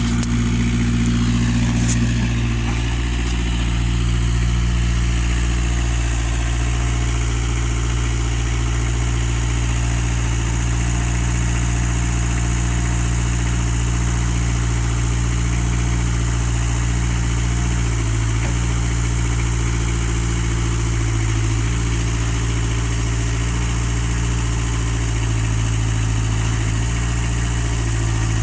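An engine idling steadily, its pitch shifting slightly a few times in the second half.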